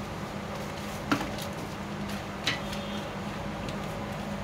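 Scissors snipping through a brown paper pattern: a few sharp snips, the loudest about a second in and another about two and a half seconds in, over a steady low hum.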